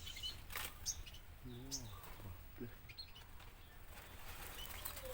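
Small caged songbirds chirping faintly in an aviary, with scattered sharp clicks or taps and a brief low murmur of a man's voice about a second and a half in.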